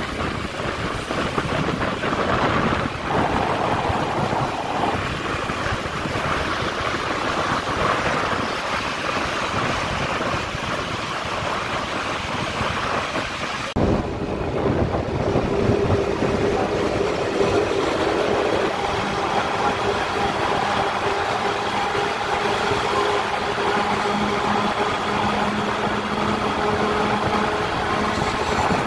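Motorcycle riding along an open road: engine running under steady rushing wind and road noise. After a short break about halfway, a steady low engine drone from heavy vehicles close alongside joins in.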